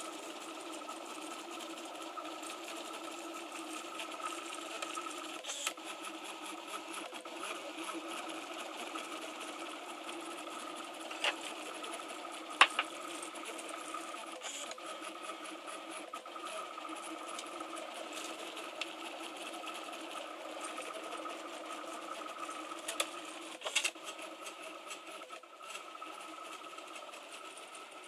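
Printrbot LC 3D printer running a print: a steady mechanical whir with a held tone from its stepper motors, broken by a few sharp clicks around the middle and again near the end.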